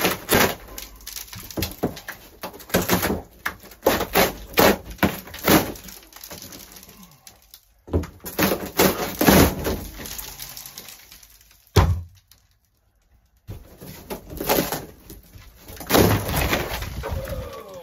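A camper's thin ceiling panel being pried and torn down by hand, giving an irregular run of cracks, snaps, creaks and knocks as it pulls away from the roof framing. A sharp crack comes about two-thirds of the way through, followed by a short pause before the cracking resumes.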